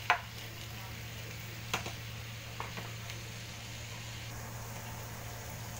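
Minced meat, carrot and eggplant sizzling steadily in a nonstick frying pan over a low, steady hum. A plastic spatula knocks sharply against the pan a few times: the loudest just at the start, another near two seconds in, and two lighter ones soon after.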